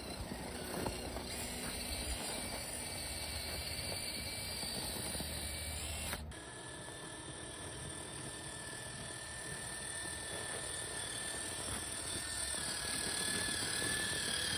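Traxxas TRX-4 RC crawler on Traxx snow tracks driving under load as it tows a sled: a steady thin electric-motor and gear whine over the noise of the tracks in the snow.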